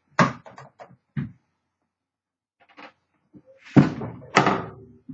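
Typewriter carrying case being handled: a quick run of small knocks and clicks, then two loud thunks about half a second apart near the end.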